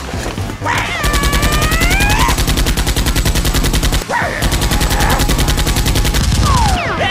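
Rapid automatic machine-gun fire sound effect laid over a Nerf Elite Hyperfire blaster, in two long bursts: one starting about a second in, the other just after four seconds and stopping near the end.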